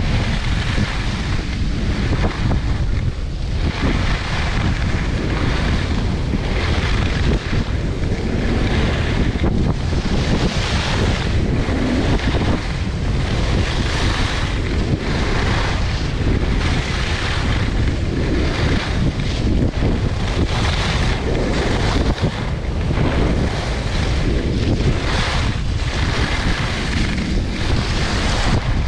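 Heavy wind buffeting the microphone of a camera carried by a skier moving downhill, with a hissing scrape of skis on groomed snow that swells and fades roughly once a second with the turns.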